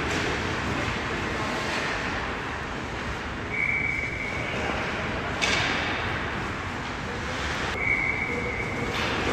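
Ice hockey rink ambience: a steady wash of skates scraping and carving the ice. Two steady high-pitched tones about a second long come a little past a third of the way in and again near the end, and there is a sudden louder scrape just past halfway.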